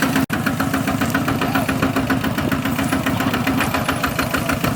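Single-cylinder diesel engine of a walk-behind hand tractor running steadily with an even, rapid chugging beat.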